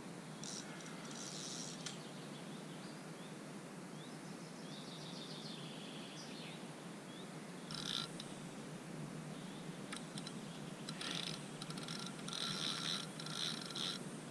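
Steady outdoor background noise with birds chirping. From about ten seconds in comes a run of short mechanical rattling bursts, fitting a spinning reel being wound while a hooked carp is played.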